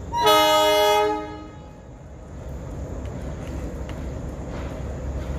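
A single loud blast of about a second from a diesel-electric locomotive's horn, a Banaras-built ALCO DL560C (class 6400), sounded as the train departs. The steady low rumble of the locomotive's engine continues underneath.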